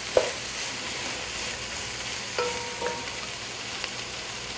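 Chopped onions sizzling in hot oil while a spoon stirs them in the pot, with a sharp clink just after the start and two ringing knocks against the pot about halfway through.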